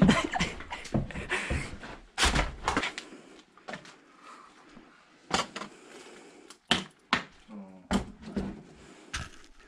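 Irregular sharp knocks and bumps of wooden doors and debris being pushed and stepped over in a cramped room, the loudest about two seconds in, with quieter stretches between.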